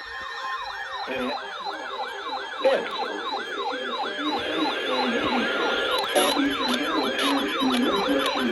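An electronic siren in a fast yelp, its pitch sweeping down again and again about three times a second, with music underneath from about a second in.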